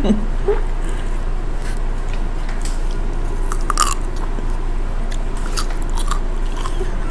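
Someone biting and chewing fried chicken, with scattered crunchy clicks, the loudest about four seconds in, over a steady low hum.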